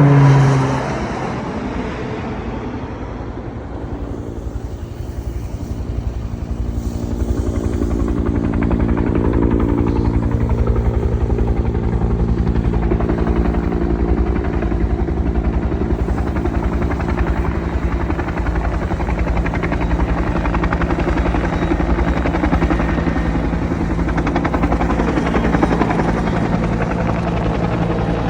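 Helicopter running with a steady rotor beat and engine whine, quieter for the first few seconds and then growing louder.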